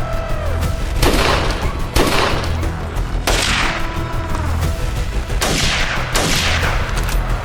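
Dramatic soundtrack music with a steady low pulse and held tones, cut through by a series of sudden, sharp noise hits that trail off, like gunfire or impact effects.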